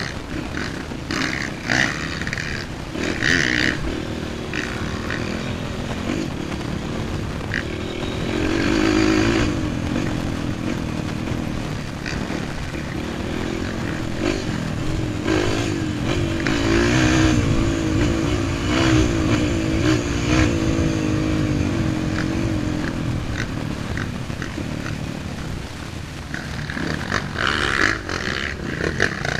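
Dirt bike engine running under way on a rough trail, its pitch rising and falling with the throttle, with a few sharp knocks from the bike over bumps.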